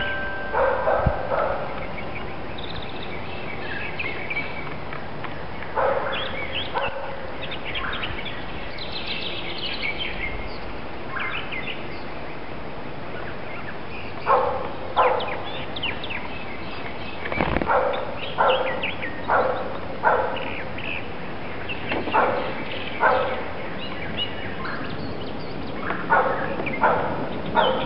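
A dog barking in short single barks, coming in spells about a second apart and getting more frequent in the second half. Wild birds chirp and sing faintly behind it.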